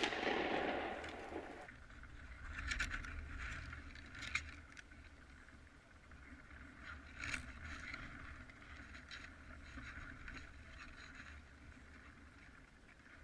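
Tail of a pump-action shotgun shot rolling away over the open river valley for about a second and a half, as the pellets strike the water around a decoy duck. After that there are only a few faint scattered clicks over a low steady rumble.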